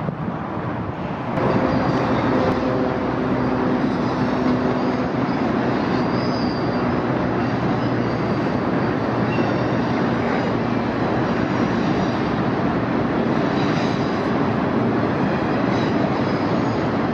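BNSF diesel freight locomotives, three units leading an intermodal container train, running past with a steady engine drone heard from high above. The sound comes in abruptly and louder about a second in.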